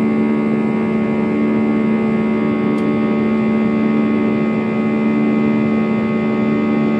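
Jet airliner's turbofan engine droning steadily in the climb after takeoff, heard inside the cabin: an even rush with several unchanging hum tones on top.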